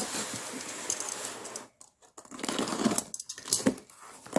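A cardboard shipping box being handled and opened: rustling, scraping and clicking noises in two spells, with a brief pause about two seconds in.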